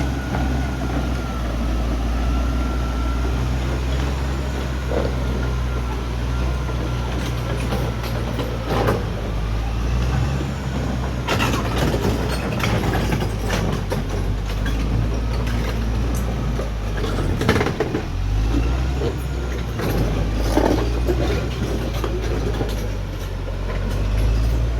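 Caterpillar D6R XL bulldozer's diesel engine running steadily, with scattered metallic clanks and knocks from about a third of the way in.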